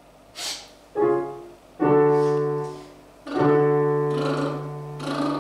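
Digital piano playing three sustained chords, the last one held and slowly fading, after a short audible breath near the start.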